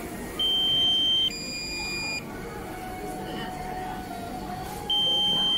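Drone controller's low-battery warning beeping: a high electronic tone for about a second, then a lower tone for about a second, the pair sounding twice, near the start and again near the end. The warning is for the drone's battery running low.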